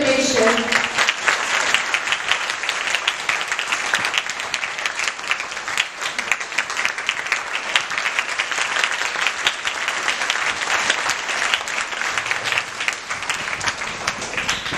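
An audience of schoolchildren clapping, a long, steady round of applause that holds at an even level throughout.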